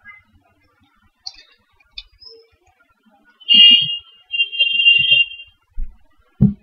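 Two steady high-pitched tones, a short one about three and a half seconds in and a longer one just after it, then a single low thump near the end.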